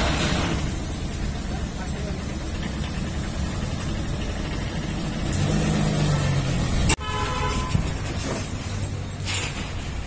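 Truck engine running with a steady low rumble. About seven seconds in comes a brief horn honk, then a couple of faint knocks.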